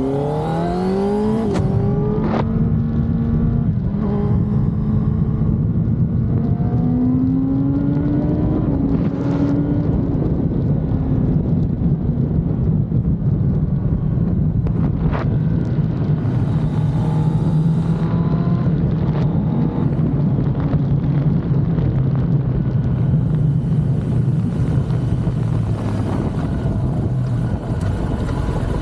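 Kawasaki ZX-10R inline-four sportbike engine on its stock exhaust, revving up sharply at the start, then holding steady revs. It climbs again around eight seconds in, then settles to a lower, even note.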